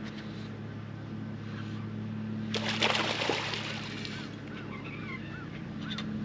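A hooked smallmouth bass thrashing and splashing at the water's surface for a second or two, about two and a half seconds in, over a steady low hum. A run of short, evenly spaced chirps follows.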